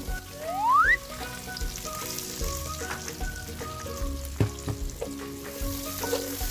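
Garlic and onion sizzling in hot oil in a pan, with stirring and a sharp utensil knock about four and a half seconds in, over background music. A loud rising whistle-like glide a little under a second in is the loudest sound.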